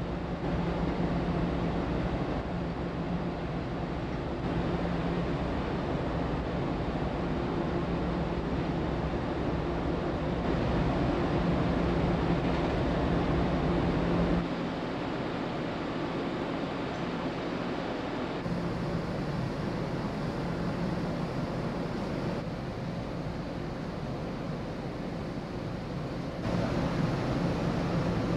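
The New Camellia ferry's engines and funnel exhaust humming steadily, with wind on the microphone on the open deck. The low rumble drops away abruptly about halfway through, and the sound shifts again near the end.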